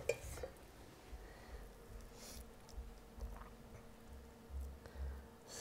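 Soft food-handling sounds: a wooden spoon scraping a metal bowl at the start, then quiet squishing and light knocks as a pepper-crust paste is pressed by hand onto a steak on a wire rack. A faint steady hum runs underneath.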